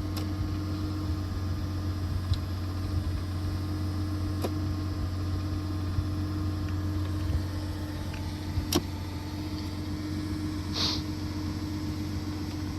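An engine idling steadily, with a few sharp knocks and a brief high squeak about eleven seconds in.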